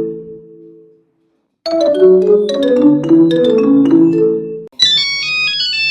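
Nokia phone ringtones played one after another. A ringing, marimba-like melody fades out, and after a brief silence a similar mallet-toned ringtone melody plays. Near the end it gives way to a thin, high-pitched electronic beeping melody of an older-style phone tone.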